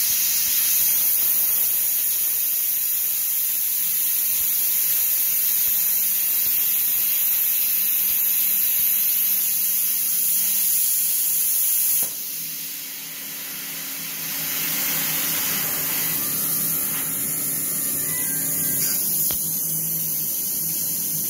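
CNC plasma cutter torch cutting steel plate, a steady loud hiss. About twelve seconds in the hiss drops away sharply, and a quieter hiss with a low hum follows.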